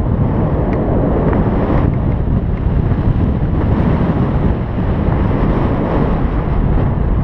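Airflow in paragliding flight buffeting the microphone: steady, loud, deep wind rumble.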